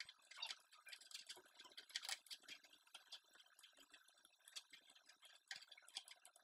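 Faint, irregular clicking and tapping on a laptop's trackpad and keys, several small clicks a second with a few louder ones.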